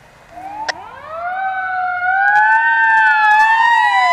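Sirens of approaching fire trucks, more than one sounding at once: they rise in pitch and grow much louder over the first couple of seconds, then keep wailing in overlapping tones, with one dipping down and back up near the end.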